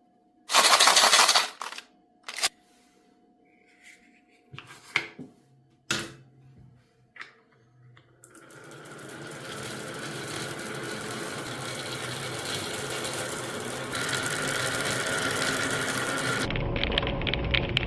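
Marbles clicking and knocking against a marble run track, a few separate hits at first, then from about eight seconds in a continuous rolling rattle of many marbles running down the track that builds up and holds. Near the end the sound changes and music comes in.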